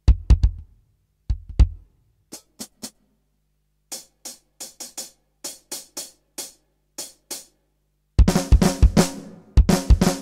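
Alesis DM8 Pro electronic drum kit played freestyle with its built-in drum sounds: a few low drum hits at the start, then a sparse run of light, high, clicky strikes, and from about eight seconds in a loud full-kit groove of kick drum, snare and cymbals.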